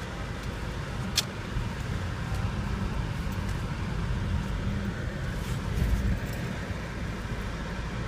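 Steady low rumble of a car's engine and tyres heard from inside the cabin as it drives slowly, with one sharp click about a second in.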